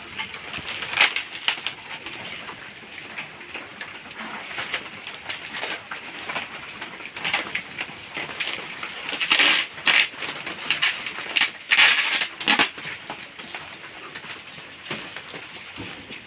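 Packaging being handled and unwrapped: short crinkling bursts and scattered clicks, busiest around ten to twelve seconds in.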